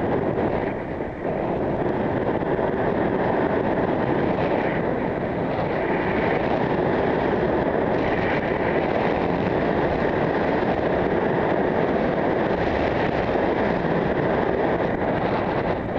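Wind rushing over a helmet camera's microphone on a road bike riding at around 20 mph: a steady noise with a brief dip about a second in.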